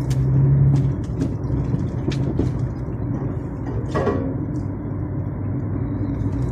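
DAF truck's diesel engine running as the truck drives, a steady low drone; the driver describes this engine as misfiring and sneezing. Several short knocks and rattles come through over it, the loudest about four seconds in.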